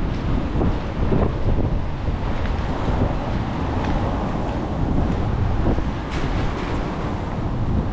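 Wind buffeting the microphone: a steady, heavy low rumble.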